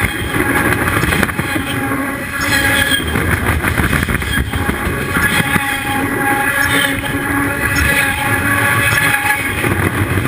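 Train cars rolling directly over a camera set between the rails: a loud, continuous rumble and rattle from the wheels and undercarriage, with high metallic ringing tones that come and go.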